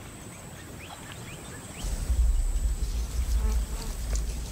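Insects buzzing with a few short rising chirps, then a deep low rumble sets in about two seconds in and holds to the end.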